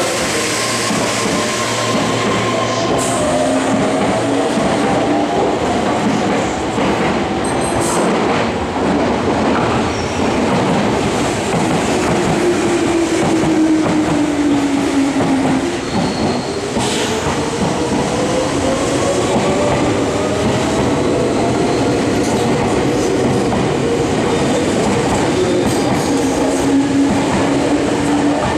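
Meitetsu 6800-series electric train, two units coupled, running through a station platform. Its motor whine falls in pitch as it slows, then rises again from about halfway as it pulls away, with wheels clicking over the rail joints and a few brief high squeals.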